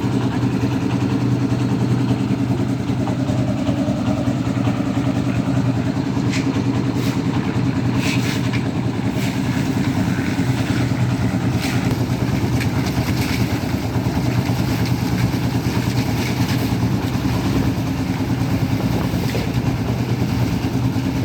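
Diesel-engined concrete mixer running steadily at the pour, with brief clatters of aggregate and tools now and then.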